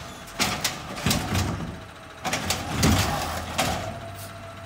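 Automated side-loader garbage truck lifting a trash cart with its hydraulic arm: the diesel engine runs under a steady whine, with a series of clanks and knocks from the arm and the cart.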